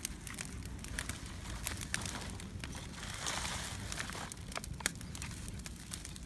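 Open wood fire crackling, with sharp pops scattered through and a short burst of hiss about three seconds in.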